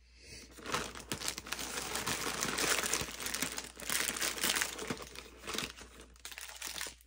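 Plastic packaging bag crinkling as it is handled and opened, in irregular rustles starting about half a second in.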